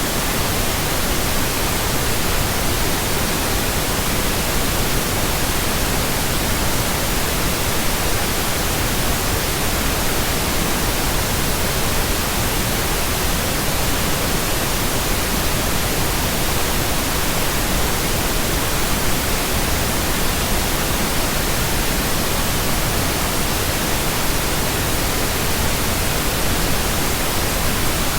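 Steady, unchanging pink noise: an even electronic hiss spread across all pitches, with no tones or breaks.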